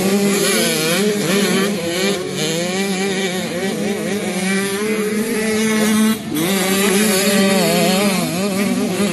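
Several 65cc two-stroke youth motocross bikes revving up and down as they race, their engines overlapping, with a short dip in the sound about six seconds in.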